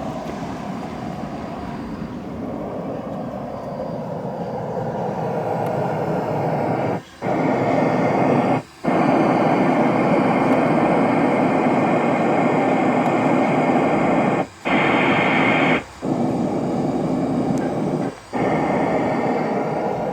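Steady rushing test noise played through a car's four-way sound system during tuning, cutting out briefly four times. After some of the cuts its tone changes, with a brighter treble band added in two stretches.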